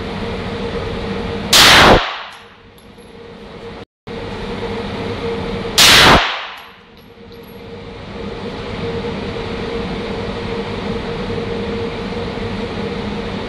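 Two pistol shots from a Springfield 1911A1, about four seconds apart, each with a short echo off the walls of an indoor range. A steady hum runs underneath between the shots.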